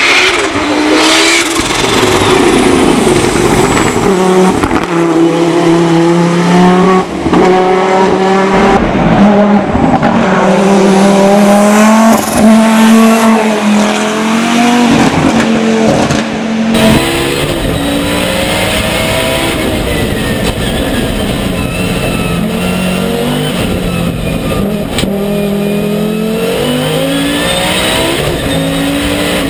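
Audi Quattro S1 Pikes Peak replica's turbocharged 2.3-litre five-cylinder engine at full throttle. Its note climbs through each gear and drops at every upshift. It is first heard from trackside as the car passes, then from inside the cockpit after a cut about 17 seconds in.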